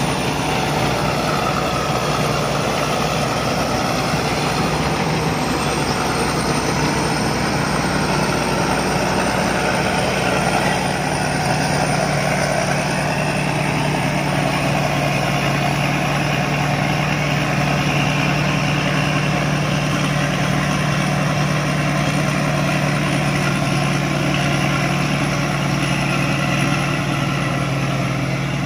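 Combine harvester running steadily while harvesting rice: an even engine drone that holds constant, with no change in speed.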